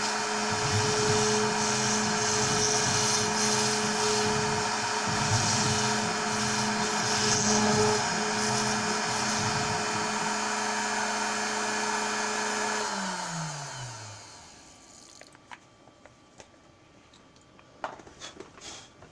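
Onefinity CNC machine's high-speed motor running steadily with a whine over a noisy hiss, then switched off about thirteen seconds in, its pitch falling as it winds down. A few short clicks follow near the end.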